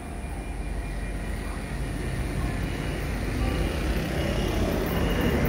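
Deep engine rumble of an approaching diesel-electric freight locomotive (R183, hauling cement hopper wagons), growing steadily louder.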